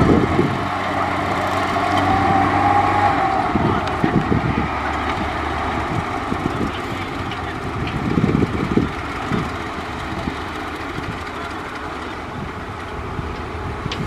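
Diesel engine of heavy earth-moving machinery running steadily, with a few louder low rumbles.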